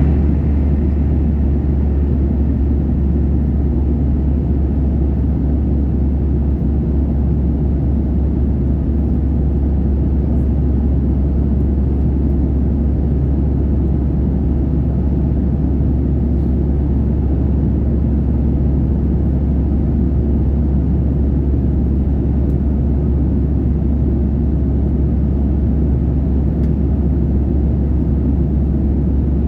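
Boeing 737-800 in flight: a steady, deep rumble of engines and rushing air, unchanging.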